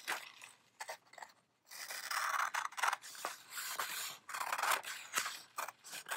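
Scissors cutting a folded sheet of paper along the crease: a quick series of crisp snips with paper rustle. There are a few snips, a short pause about a second and a half in, then steady cutting.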